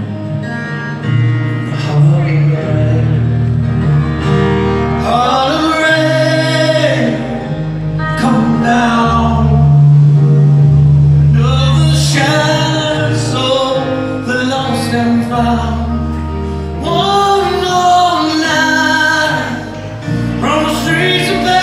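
Live rock band playing a song in a theatre, heard from far back in the audience: singing over guitar and steady held bass notes.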